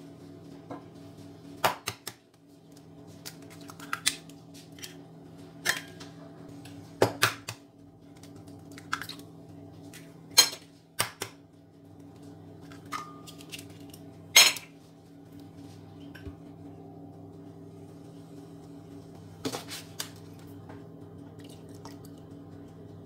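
Eggs being knocked and cracked on a glass blender jar: a dozen or so sharp taps and clicks of shell on glass, the loudest about ten and fourteen seconds in, with a pause near the end.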